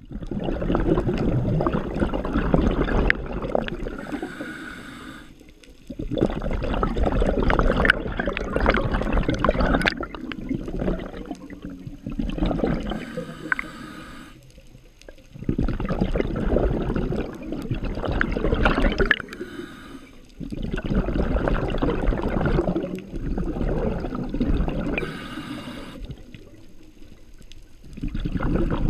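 Diver breathing underwater, heard through a GoPro housing: long bubbling exhalations of three to four seconds each, separated by a short hissing inhale through the regulator, about four breaths in all.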